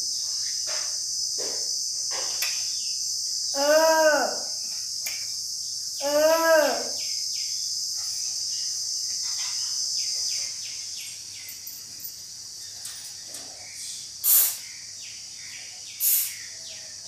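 Crickets chirring in a steady high hiss, which fades out about ten seconds in. Over it come two short pitched calls that rise and fall, and near the end two brief sharp bursts.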